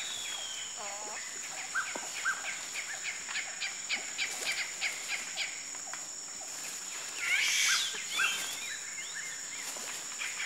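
Tropical rainforest ambience: a steady high insect drone under many short, high chirping calls, which come in quick runs of about four a second. About seven seconds in there is a louder noisy burst lasting about a second.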